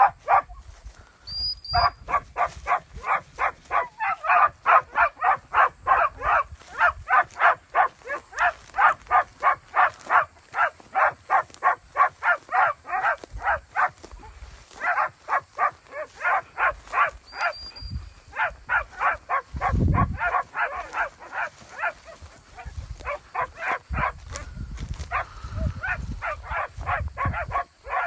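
Rapid, rhythmic panting close to the microphone, about two to three breaths a second and continuing with short breaks. A low rumble of wind or handling comes in briefly near the middle and again near the end.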